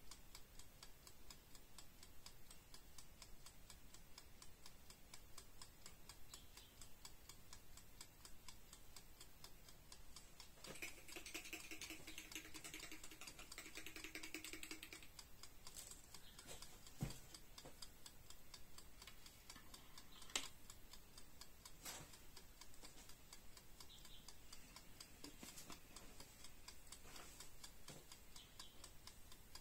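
Faint, rapid crackling of cooking oil heating up in an electric deep pot, small bubbles popping as it warms. A brief hum rises in the middle, and two sharper clicks come about three seconds apart.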